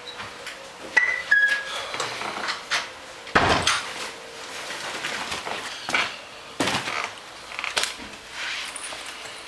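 Footsteps and a reusable shopping bag being carried and set down on a wooden floor: a run of knocks, thuds and rustles, with a heavier thud about three and a half seconds in and two short squeaks about a second in.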